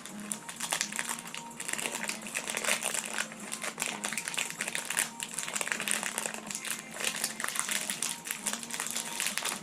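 Packaging crinkling and rustling in irregular bursts of crackle as it is handled and unwrapped.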